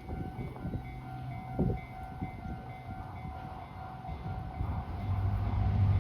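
Level-crossing warning bell ringing steadily, with the low rumble of an approaching train growing louder near the end.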